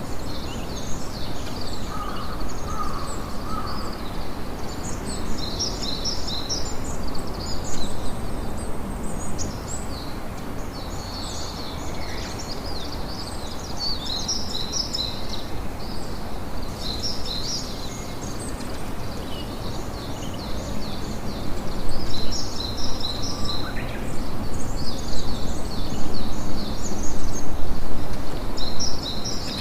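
Songbirds chirping in repeated clusters of quick high notes, over a steady low rushing background that swells louder in the last few seconds.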